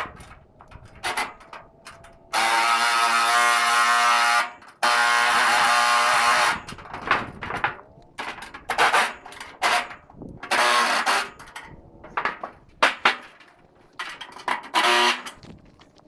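Cordless power driver running in two long runs of about two seconds each near the start, then a string of short bursts: tightening the loose bolts on a calf feeder.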